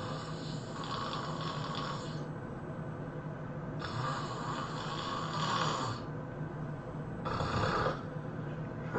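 A sleeping person snoring, three snores at about three-and-a-half-second intervals, the last one shorter. A steady low hum runs underneath.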